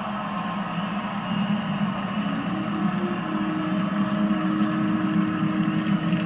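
Large stadium crowd cheering and applauding, heard through a television's speaker; the cheering swells a little about a second in.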